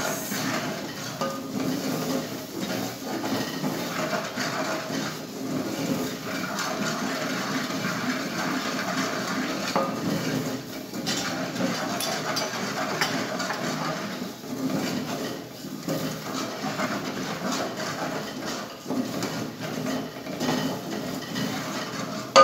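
A spoon stirring and scraping through thick masala in a metal cooking pot, a steady run of scrapes and light clinks against the pot's sides.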